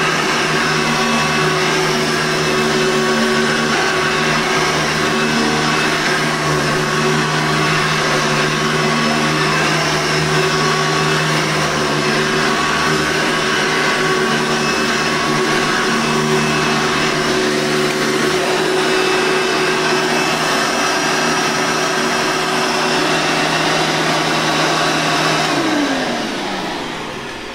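Hoover Tempo upright vacuum cleaner running steadily with a motor whine, then switched off about 26 seconds in, its pitch falling as the motor winds down.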